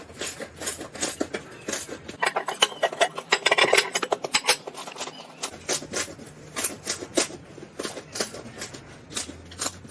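A knife cutting into dry soap: a quick, irregular run of crisp crunches and clicks, densest about three to four seconds in.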